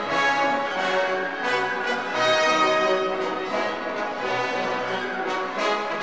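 Orchestral background music, with brass such as French horns holding sustained, overlapping notes.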